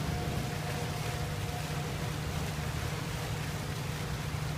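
A tour boat's engine running with a steady low drone while under way, mixed with the rushing of its wake churning the water behind.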